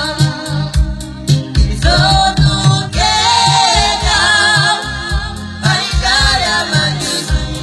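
Romani pop song: a man singing in phrases with vibrato over keyboard backing and a steady bass-and-drum beat.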